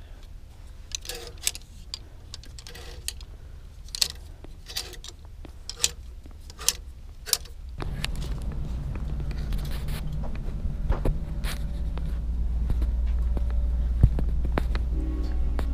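Sharp metallic clicks and clinks, one or two at a time, of hard items being handled. About eight seconds in, a steady low hum comes in suddenly and continues, with a few more clicks over it.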